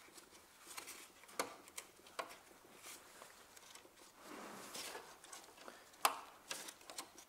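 Faint scattered clicks and light metallic rattles of tools and parts being handled while a cable fastening on a car's hybrid inverter is worked loose, with one sharper click about six seconds in.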